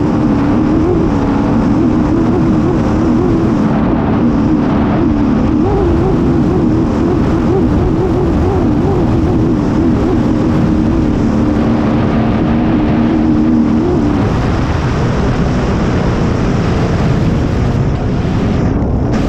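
Racing hydroplane's engine running hard at speed, heard from on board over heavy wind and water rush. The engine note holds steady with a slight warble, then eases about 14 seconds in.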